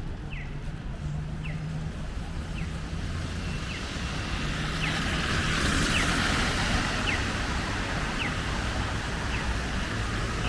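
Downtown street noise in snow: traffic running steadily, with a hiss of tyres that swells from about halfway through as a vehicle passes. Over it, a short high chirp repeats about once a second.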